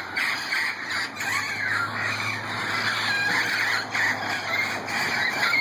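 Flock of wild parrots squawking and screeching, many harsh calls overlapping in a continuous chatter.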